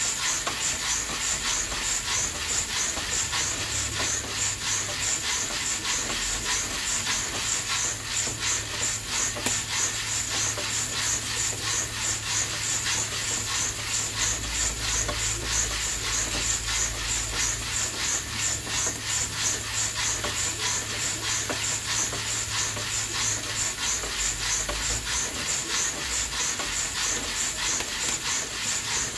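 Coffee beans roasting in an old coffee roaster: a steady hissing sizzle that pulses quickly and evenly, as the beans tumble.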